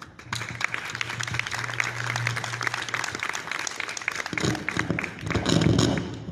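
A small group clapping in applause. A low steady hum runs under the first half, and loud low bumps come near the end.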